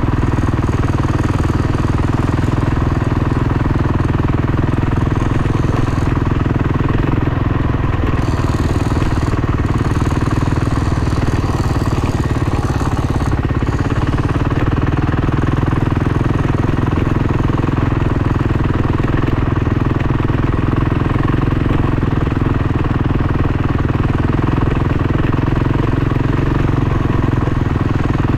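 Dirt bike engine running at a steady, even pitch, with no revving up or down.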